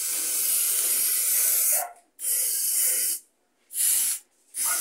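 Aerosol can of gloss white spray paint hissing in four bursts: a long spray of about two seconds, one of about a second, then two short ones.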